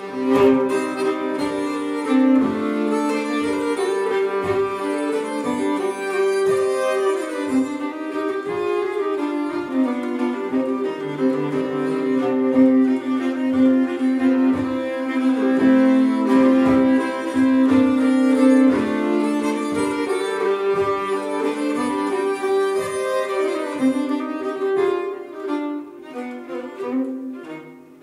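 A fiddle and a nyckelharpa bowed together in a live duet of a Swedish folk tune, the fiddle carrying the melody over the nyckelharpa's sustained lower notes. The playing grows quieter near the end.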